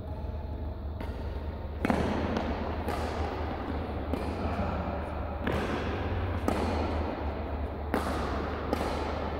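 Badminton rally: about eight sharp racket strikes on the shuttlecock, roughly one a second, each with a short echo from the large hall. A steady low hum runs underneath.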